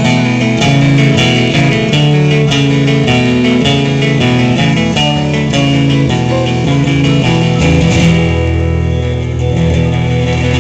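Live instrumental break of a folk-gospel song: strummed guitar with electric guitar and harmonica. The strumming stops about eight seconds in, leaving a held chord.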